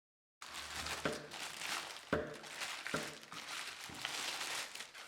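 Packaging crinkling and rustling as a cordless impact wrench is unwrapped and lifted out, with several sharp clicks and knocks among the rustling. The sound starts abruptly about half a second in.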